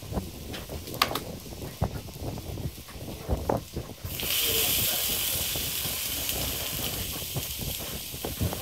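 Metal takoyaki picks clicking against the takoyaki griddle as the balls are turned. About four seconds in, a sudden loud sizzling hiss from the hot griddle, slowly fading.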